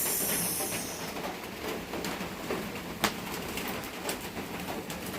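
Bird cooing in the background, with a short high hiss in the first second and a few sharp clicks.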